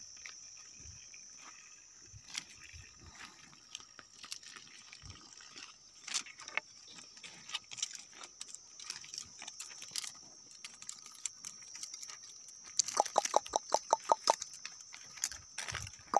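Cows grazing on dry stubble: scattered soft crunches and tears as they crop the grass, over a steady high-pitched hum. About thirteen seconds in, a rapid run of about ten sharp ticks lasting over a second.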